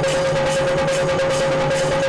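Drums played by hand in a fast, even rhythm, over a steady held tone.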